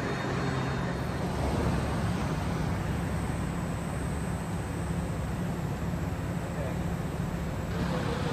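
Steady low machinery hum in a metal shop, with an even rushing noise over it.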